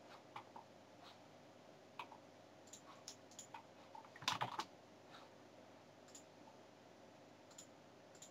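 Faint computer mouse clicks and keyboard keystrokes, scattered and sparse, with a louder cluster of keystrokes about four seconds in.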